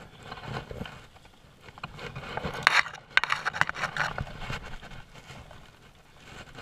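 Irregular rustling and scraping of clothing and brush rubbing close against a body-worn camera, with a few sharp clicks, loudest about halfway through.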